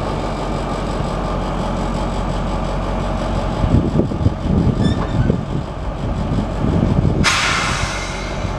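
Class 218 diesel-hydraulic locomotive's V12 diesel engine running at low revs while shunting slowly, with uneven low rumbling in the middle. About seven seconds in, a loud hiss of compressed air, about a second long, cuts in and stops.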